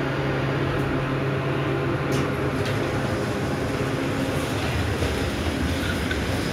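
Otis hydraulic elevator arriving at a train platform, its doors sliding open with a couple of light clicks about two seconds in. Under it runs a steady low hum and the rumble of the rail platform beyond.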